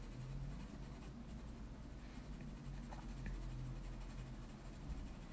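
Faint scratching of a pencil tip making small strokes on toned drawing paper, with a few soft ticks.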